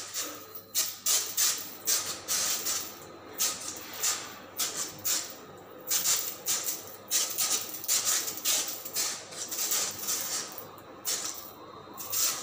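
Pressurized insecticide spray hissing from a sprayer lance in short, uneven bursts, about one to three a second.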